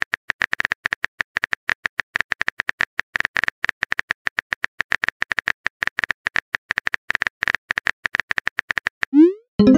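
Simulated phone-keyboard typing clicks, rapid and steady, as a text message is typed letter by letter. Near the end comes a short rising swoosh and a chime as the message is sent.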